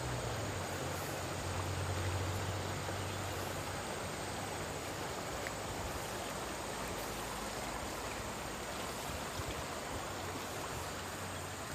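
Steady rushing of a fast-flowing river running through and past a bamboo fish-trap fence: an even hiss with a low rumble underneath.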